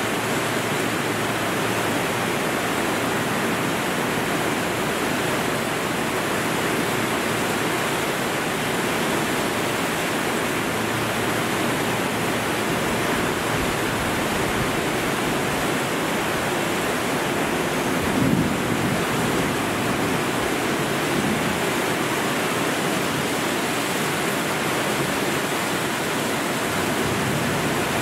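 Torrential cloudburst rain pouring down in a steady, dense hiss. A brief low thump about two-thirds of the way through.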